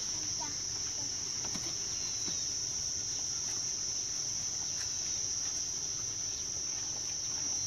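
A steady, high-pitched chorus of insects chirring.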